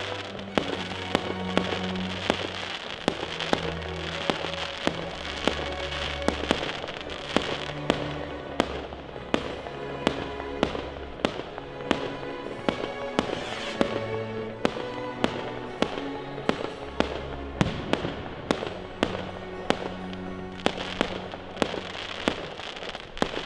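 Aerial fireworks bursting in a rapid run of sharp bangs, about two a second, over music with long held bass notes.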